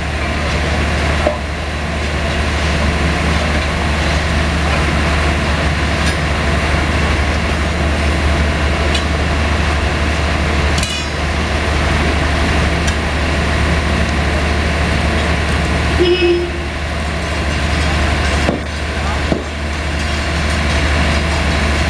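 Steady low drone of the mobile flash butt welding machine's power unit running, with a few sharp knocks from a steel bar on the welded rail samples.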